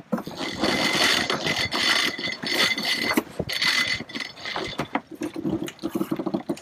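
Sailboat sheet winches ratcheting, the pawls clicking, as crew haul a line in by hand and crank it with a winch handle.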